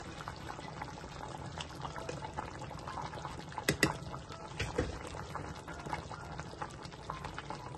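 Broth with bone-in meat simmering in a large metal pot, bubbling and popping steadily. About four seconds in come two sharp clicks as a metal spoon knocks against the pot while adding chili powder.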